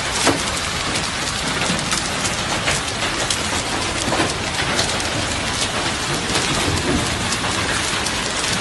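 Hail and rain falling hard on paving stones and a road: a steady hiss of rain, dotted with many sharp ticks of hailstones striking.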